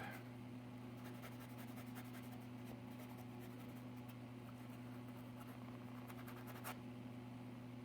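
Faint scratching of a sanding block rubbed over a metal bus bar from an amplifier circuit board, over a steady low electrical hum; a single click near the end.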